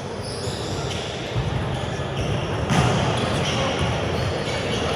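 Ball bouncing on an indoor court amid the chatter of voices in a sports hall.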